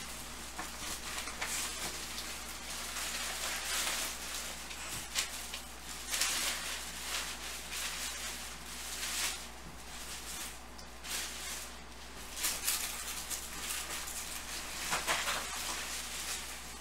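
Soft, irregular rustling and scraping from hands handling small objects, every second or two, over a steady low electrical hum.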